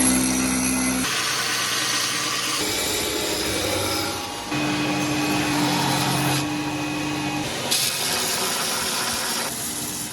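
Workshop power tools running and grinding in a string of short clips, the sound cutting abruptly from one tool to the next every second or two; some clips carry a steady motor hum.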